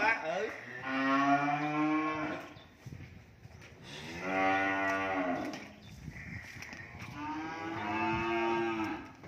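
Young cattle mooing: three long, drawn-out calls about three seconds apart, each lasting one and a half to two seconds.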